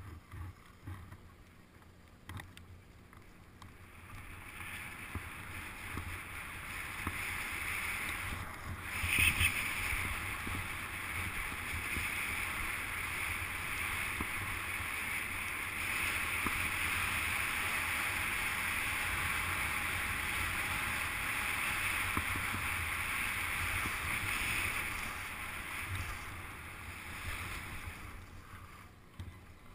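Skis running over snow with a steady rush of wind. It builds over the first several seconds as speed picks up, with a brief louder bump about nine seconds in, holds steady, then eases off near the end as the skier slows.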